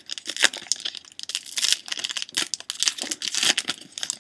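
Plastic trading card pack wrapper crinkling and tearing as a pack is opened and handled: a dense, irregular run of sharp crackles.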